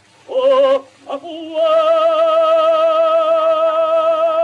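Baritone singing an opera aria with orchestra, heard from a 1907 acoustic 78 rpm gramophone record: two short notes, then one long high note held with vibrato for about three seconds.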